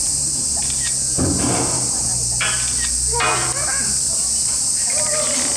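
Steady high-pitched drone of cicadas in full summer chorus.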